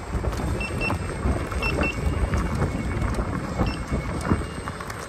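Wind rumbling on the microphone over electric unicycle tyres rolling on a gravel and dirt path, with scattered sharp clicks from stones under the wheels.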